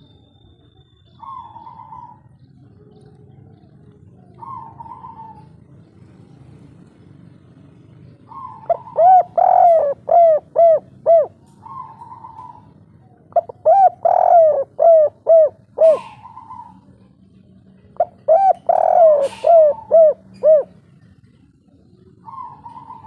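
Spotted dove cooing in three loud bouts of about two seconds each. Each bout is a quick run of five or six repeated coo notes, the kuk-3 style of call kept tekukur birds are prized for. Softer single short coos come in the gaps between bouts.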